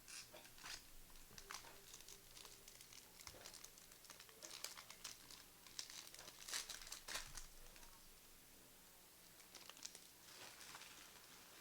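Foil wrapper of a trading card pack being torn open and crinkled, in faint irregular crackles, with a short pause before a last burst of crinkling near the end.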